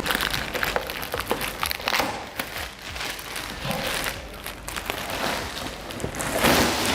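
Packaging crinkling and rustling, with small clicks and knocks, as a Dahua network video recorder is lifted out of its box; the rustling swells near the end.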